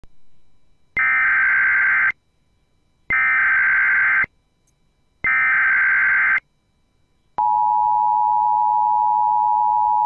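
Emergency Alert System SAME header: three identical bursts of digital data tones, each about a second long and about two seconds apart, encoding a Child Abduction Emergency (AMBER Alert). About seven seconds in, the steady two-tone EAS attention signal begins.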